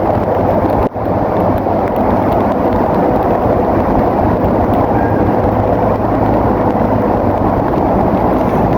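Bulldozer's diesel engine running steadily under a dense rushing noise, with a brief dropout about a second in.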